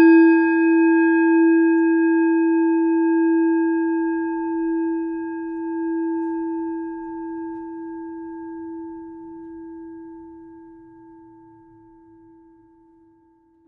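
A singing bowl struck once. It rings with one deep tone and a few higher overtones, wavering slowly in loudness as it fades away over about fourteen seconds.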